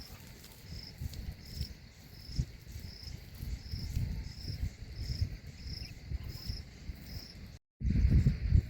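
Insect chirping: a short high-pitched chirp repeating evenly, about one and a half times a second, over a low rumble. The audio drops out briefly near the end, and a louder low rumble follows.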